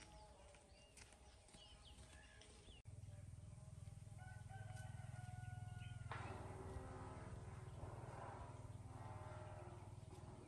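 Faint rooster crowing about six seconds in, with small birds chirping at the start and a low steady hum that begins suddenly about three seconds in.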